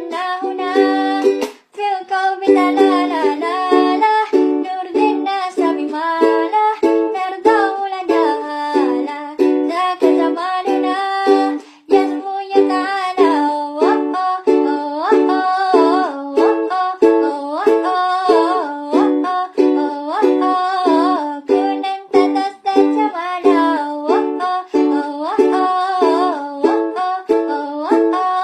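Music: a plucked ukulele playing under a gliding melody line, with no words sung.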